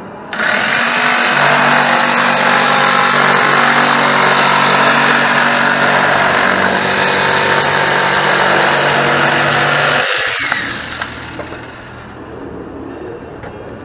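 Electric jigsaw cutting through a plywood board: the motor and blade run steadily for about ten seconds, then the saw stops and winds down as the cut finishes.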